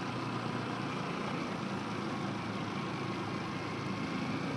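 Honda XR125L's single-cylinder four-stroke engine running at low, steady revs as the bike is ridden slowly.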